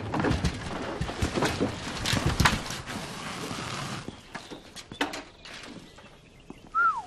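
A motorcycle with its engine off being rolled down a wooden loading ramp: hollow knocking and rattling of wheels and boots on the boards for about four seconds, then quieter footsteps and scuffing on the road.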